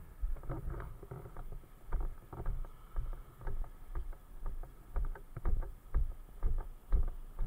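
Footsteps of a firefighter in boots walking along an asphalt road: steady low thuds about two a second, with the rustle of gear between steps.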